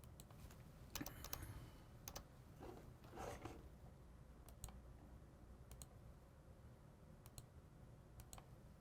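Faint computer mouse clicks, scattered single and paired clicks, as lines are drawn on a stock chart.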